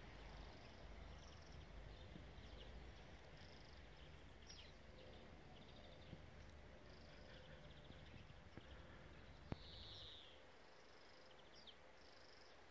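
Faint small birds chirping and trilling in short repeated phrases, over a low rumble, with a single sharp click about two-thirds of the way through.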